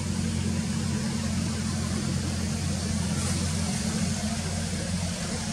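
A steady low engine hum with a noisy hiss over it, like a motor running at idle.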